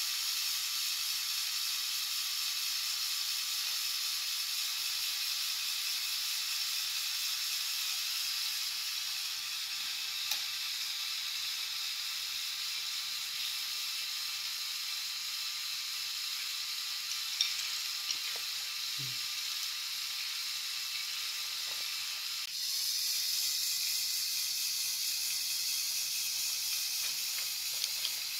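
LEGO Technic Power Functions XL motor driving the plastic gear train of a bucket wheel excavator model: a steady whirring hiss with a faint high whine and a few faint clicks. The sound changes and grows slightly louder about two-thirds of the way through.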